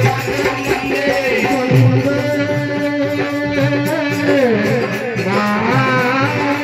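Braj folk devotional music of the danda bhajan style: a melody of long held notes that slide in pitch, over accompaniment.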